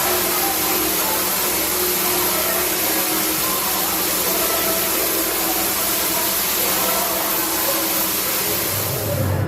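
Steady hiss of steam venting from a prop podracer engine used as a meat roaster, with a faint murmur of people beneath; the hiss cuts off sharply at the end.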